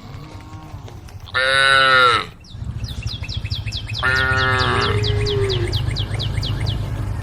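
Cattle mooing: a short loud call about a second and a half in, then a longer, lower call about four seconds in. From about two and a half seconds on, a quick run of high chirps, about four a second, and a low rumble sound under the calls.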